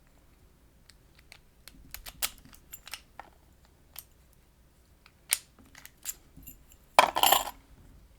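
Small metal clicks and clinks from handling and picking a wafer lockout padlock with lockpicking tools, followed by a short clattering rattle about seven seconds in.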